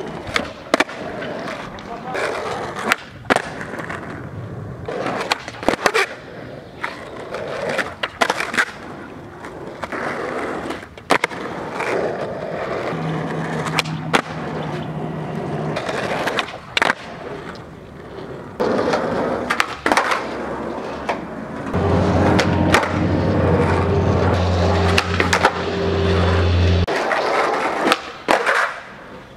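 Skateboard wheels rolling on asphalt and concrete, broken by many sharp pops and clacks as the tail is snapped, the board flips and the skater lands back on it during flatground flip tricks. A steady low hum comes in twice, briefly in the middle and for several seconds near the end.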